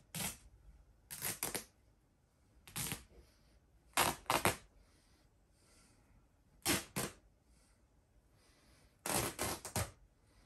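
A large plush stuffed toy being torn apart by hand: its fabric and seams give short ripping sounds in six bouts a second or two apart, several of them quick runs of two or three rips.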